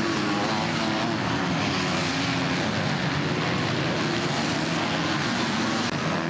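Motocross bikes racing close together, their engines revving with the pitch rising and falling as the riders work the throttle through the turns.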